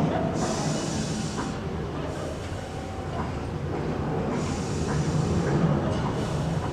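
Bhastrika pranayama breathing: slow, deep breaths drawn in and let out through the nose in turn, each a couple of seconds long. The rushing of air is loud about half a second in and again past four seconds, with fainter breaths between.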